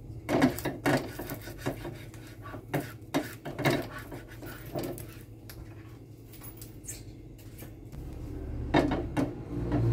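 Spatula scraping and knocking around an empty non-stick frying pan, clearing leftover bits of fried egg, in a run of short scrapes and taps. Near the end the pan clatters as it is lifted on the gas stove.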